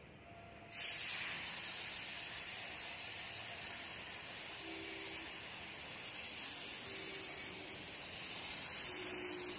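Steady hiss of rushing air starting under a second in, with three faint brief hums near the middle and end.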